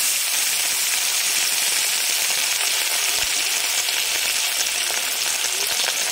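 A piece of katla fish frying in hot mustard oil in a kadhai: a steady, dense sizzle with fine crackling.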